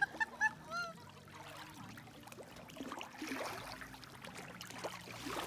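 Kayak paddle blades dipping and pulling through calm lake water, a faint uneven trickling and splashing that swells a little a few seconds in. A few short high-pitched calls in the first second are the loudest sounds.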